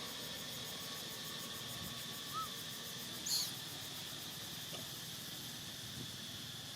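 A baby monkey gives one short, very high squeak a little past the middle, after a brief soft note, over a steady background hiss.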